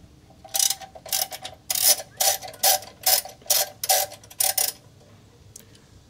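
Socket ratchet wrench clicking in a quick, even series, two or three clicks a second for about four seconds, as it backs off a 10 mm lock nut.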